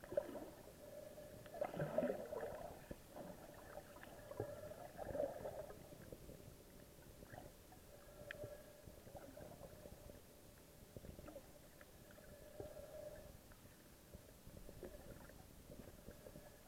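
Faint, muffled underwater water noise: low gurgling swells, loudest about two and five seconds in, with scattered small clicks.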